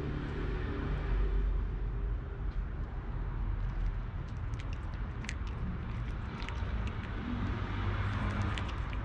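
A cat crunching dry kibble, with scattered sharp crunches, over a steady low rumble.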